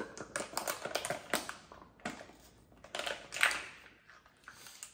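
Small plastic bottle of glue being squeezed out by hand: irregular crinkling clicks and short crackly bursts, the loudest about three and a half seconds in.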